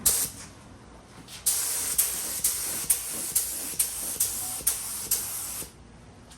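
Small air spray gun spraying paint: a short blast of air hiss at the start, then a sustained hiss of a few seconds with regular sharp surges about twice a second as the trigger is worked during the passes.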